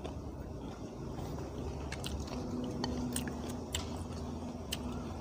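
A person chewing a mouthful of pounded green mango salad (tam mamuang) close to the microphone, with scattered small clicking mouth sounds.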